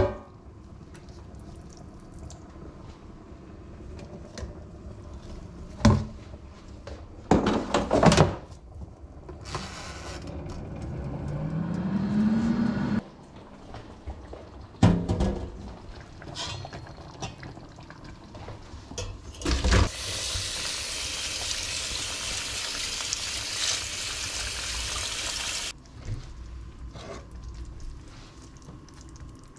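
Kitchen sink work: a metal pot knocks against a stainless steel sink a few times, then fills with water from the tap, the pitch rising as it fills. Later, water runs hard into the sink for about six seconds and cuts off suddenly.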